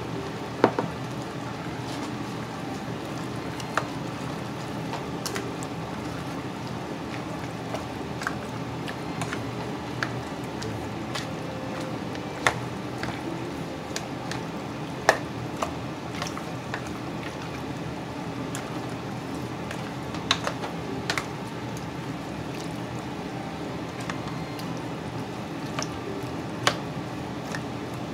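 Chicken and pork pieces sizzling in a pot with a steady hiss, while a spoon stirs them, squishing the meat and giving scattered sharp clicks and knocks against the pot.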